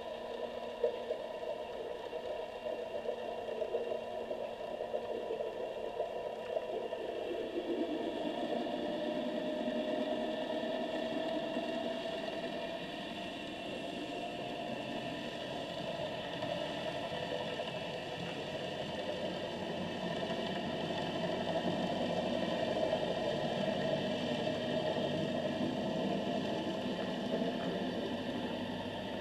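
Boat engine noise heard underwater: a steady drone with several humming tones, one of them rising slightly in pitch about eight seconds in, the whole slowly swelling and easing in loudness.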